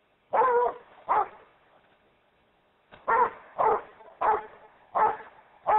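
Rhodesian Ridgeback barking at an approaching cloaked figure: two barks, a pause of about two seconds, then five more at a steady pace.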